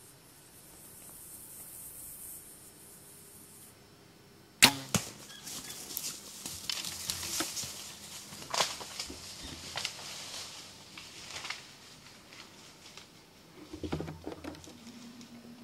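A bow shot from a Hoyt Carbon Matrix compound bow: one sharp, loud snap of the release about four and a half seconds in. It is followed by several seconds of crackling and rustling as the arrowed whitetail buck runs off through the brush.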